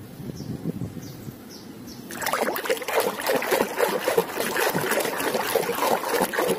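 A hand sloshing and splashing through a bucket of thick, muddy water, with wet squelching and gurgling. It starts about two seconds in, after a quieter start, and keeps on busily.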